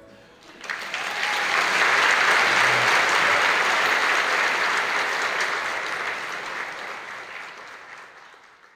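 Audience applauding: the clapping breaks out about half a second in, swells quickly, then slowly fades out near the end.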